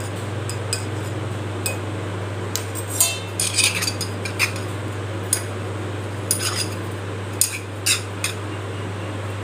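Metal spoon clinking and scraping against the inside of a brass idiyappam press as oil is spread around its inner wall: a scattering of short clinks, busiest in the middle, over a steady low hum.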